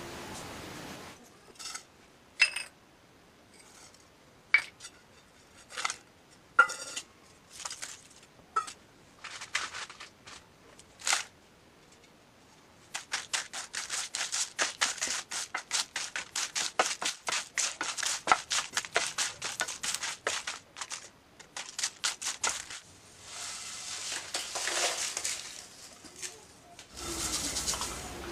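Wooden spatula stirring and scraping whole spices (bay leaves, cinnamon sticks, dried red chillies, cumin) as they dry-roast in a non-stick pan. Scattered clicks and scrapes at first, then a fast run of scraping strokes, several a second, for about ten seconds, then a softer hiss near the end.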